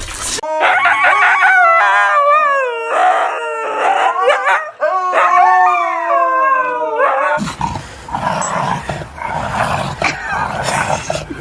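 A dog howling in long notes that slide up and down. About seven seconds in, this gives way to a noisier, rougher sound.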